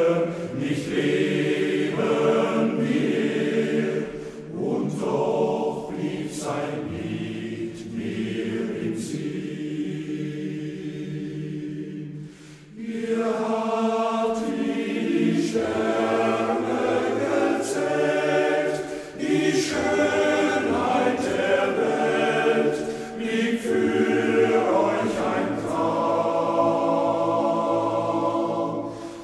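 Men's choir singing a German song in sustained chords, phrase by phrase, with a brief break about twelve seconds in.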